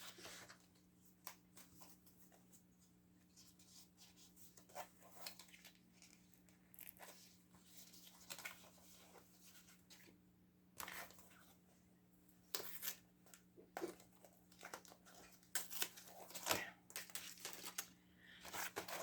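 Faint, scattered rustling and crinkling of packaging being pulled off and handled around a pack of linen cardstock cards, the rustles coming more often in the second half. A faint steady low hum runs underneath.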